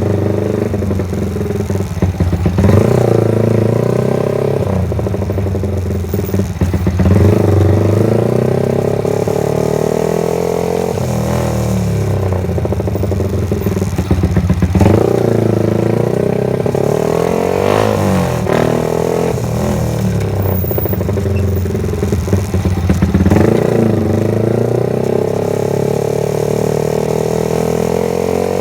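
Motorcycle engine running throughout, its pitch rising and falling as the throttle is opened and closed, with several louder revs about 2.5, 7, 15 and 23 seconds in.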